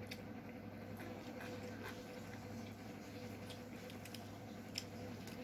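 Eating chicken curry and rice by hand: soft, scattered wet clicks and squishes of chewing and of fingers working the food, over a steady faint hum.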